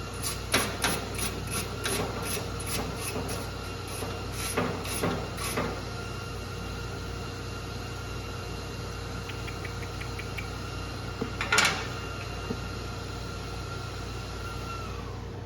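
MIG welder stitch-welding thin sheet steel to fill a gap, in quick short pulls of the trigger: a run of brief crackling zaps, about two a second, for the first six seconds, then one more zap near the end, over a steady faint hum.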